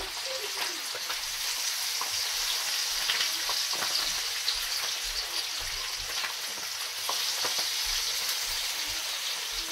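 Masala-coated fish pieces frying in hot oil in a shallow pan: a steady sizzle with scattered crackles and pops.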